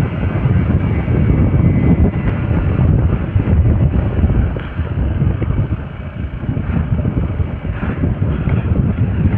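Wind buffeting the microphone on a moving Hero XPulse 200 4V motorcycle: a heavy, gusting low rumble with the bike's single-cylinder engine running under it.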